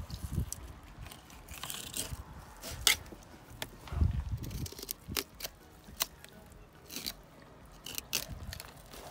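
Filleting knife slicing through a codfish on a cutting table: irregular crunching and clicking as the blade cuts through flesh and bone, with a low thump about four seconds in.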